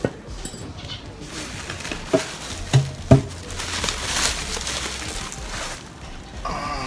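A few light knocks and some rustling as parts and packaging for a BMX rebuild are handled.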